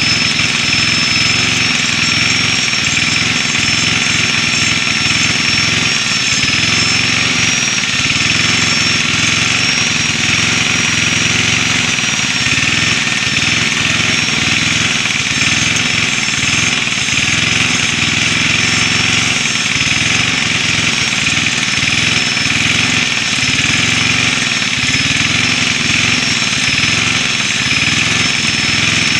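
Angle grinder running continuously with a steady high whine over a rough, gritty rumble, grinding the teeth of a chainsaw chain to sharpen them.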